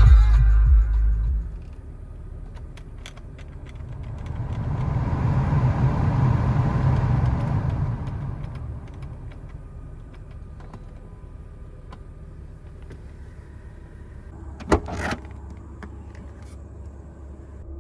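Car stereo music cuts off about a second in. Then the BMW E36's climate-control blower fan spins up into a rush of air and winds back down over a few seconds. Near the end comes a single sharp thump.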